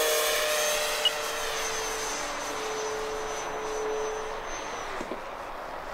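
Electric motor and propeller whine of an E-flite Air Tractor 1.5 m RC plane passing low and climbing away, loudest at first and fading. A single sharp click about a second in.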